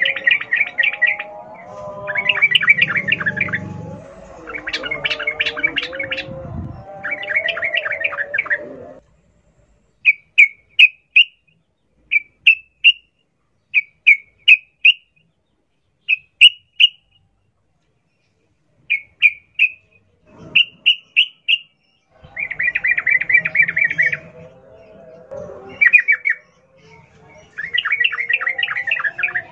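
Yellow-vented bulbul (trucukan) song in a rapid rattling style: bursts of quickly repeated notes about a second or two long. In the middle these give way to short three-note phrases, and the dense bursts return near the end. Softer, lower warbling sits beneath the dense stretches.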